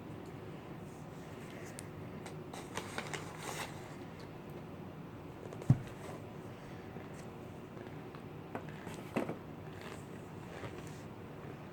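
Faint crackling and rustling of a cornstarch box and its powder being handled, with a single sharp knock about halfway through, over a steady low hum.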